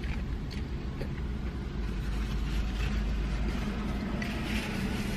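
Steady low hum of a car's interior with the engine running, under a person chewing a mouthful of burger. About four seconds in, a paper napkin rustles as it wipes the mouth.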